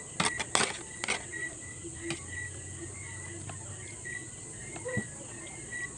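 Metal spoon and fork clinking and scraping against a plate, several sharp clicks in the first second and a few lighter ones later. Behind them, a faint insect chirp repeats steadily about twice a second.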